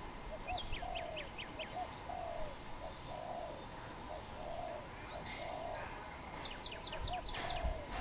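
Dove cooing: a low, soft note repeated about once a second. Small birds add quick runs of high, falling chirps about half a second in and again near the end.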